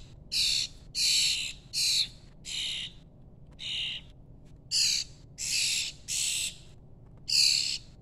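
Fledgling songbirds giving harsh, raspy food-begging calls while being hand-fed, about nine short calls with brief gaps between them.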